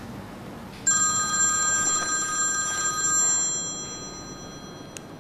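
Mobile phone ringtone: a bright ring made of several steady high tones sounding together. It starts suddenly about a second in and fades away over the next few seconds.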